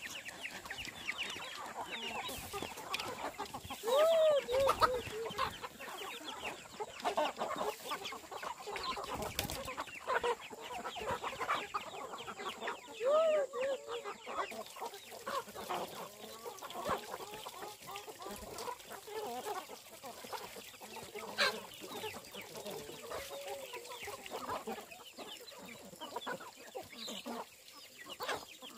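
Chickens clucking: a hen's short runs of clucks stand out a few times over a steady scatter of short high chirps.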